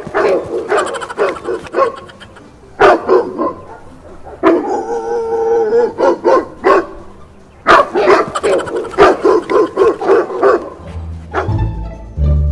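Recorded dog barking played through a portable loudspeaker, in four volleys of rapid, loud barks with short gaps between them. Low string music comes in near the end.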